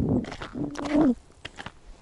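A short voice-like sound in the first second, then rubber boots stepping on fresh river ice: a quick series of light, sharp steps.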